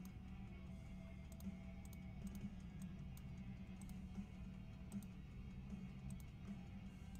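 Faint background music with a steady low hum, and scattered light clicks every second or so.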